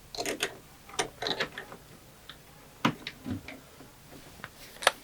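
Metal screws clicking and rattling as they are picked through by hand: a scatter of short, irregular clicks and small clusters of clinks.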